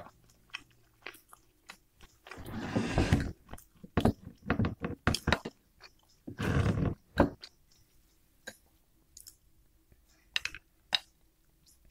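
Close-miked chewing of oat-crusted fried chicken fillet: wet mouth clicks and crunching, with two longer crunchy stretches, one about two seconds in and another about six seconds in.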